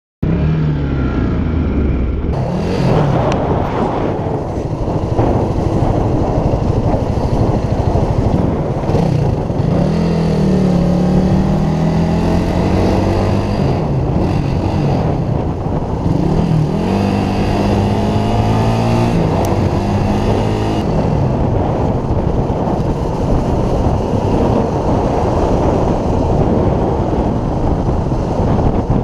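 Motorcycle engine running under way, its pitch rising and falling several times as the rider accelerates and shifts gears, over steady wind rush on the microphone.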